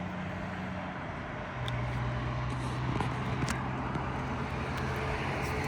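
A nearby engine running steadily, its hum dropping to a lower pitch about a second and a half in, with a few light clicks over it.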